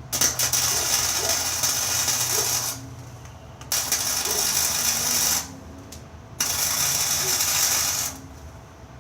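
Arc welder crackling in three runs of about two seconds each with short pauses between: tack welds being laid on a metal frame.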